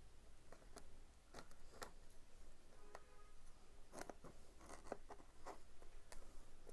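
Faint, irregular scratching and clicking of a blade slicing through a parcel's outer packaging, cut shallowly at the surface only.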